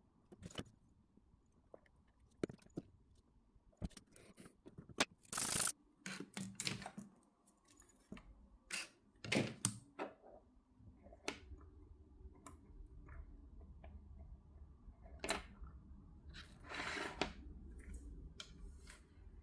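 Scattered light clicks and short scrapes of small watchmaking tools handling a pocket-watch movement on the bench, with a faint low hum in the second half.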